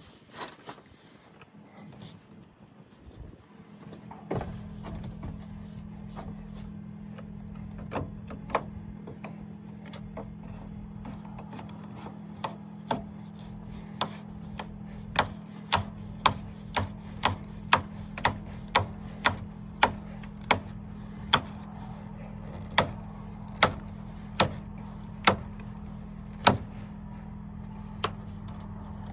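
A steady low machine hum that starts about four seconds in, with a long run of sharp clicks over it, about one or two a second at their busiest.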